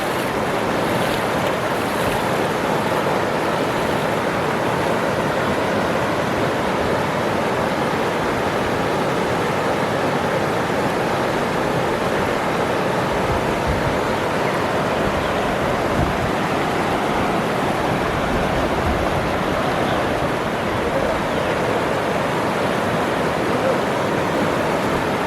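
Waterfall rushing, a steady even wash of falling water.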